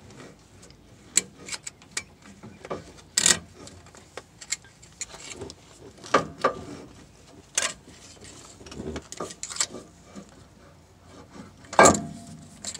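Flathead screwdriver clicking and scraping against metal inside a rear differential as it pries the axle shaft up to line it up. Irregular light clicks and knocks, with a sharper knock about three seconds in and the loudest one near the end.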